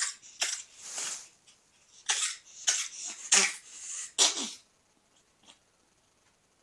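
Ferret coughing: a run of about eight quick, short coughs over four and a half seconds, then stopping.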